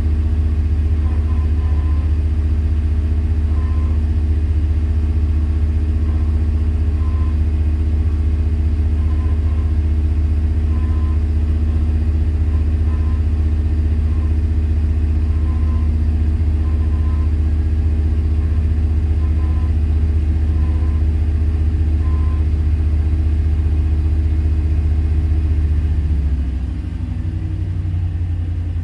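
A 2001 truck's 5.3 L LS V8 running at a steady low idle, which the owner says is misfiring and running poorly. Near the end the low engine note changes and drops a little.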